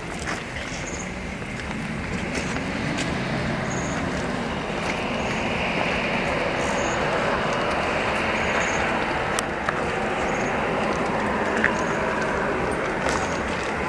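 Steady outdoor ambience of a large crowd standing quietly: a low murmur and rustle that swells slightly over the first few seconds.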